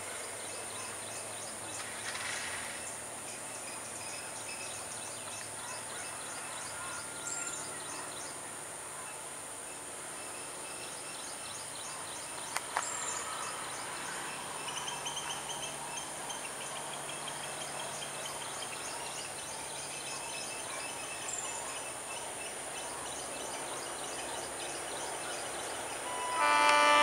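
Diesel locomotive approaching with its engine running, over a steady high-pitched drone and a few short chirps; in the last second its horn starts, loud and steady.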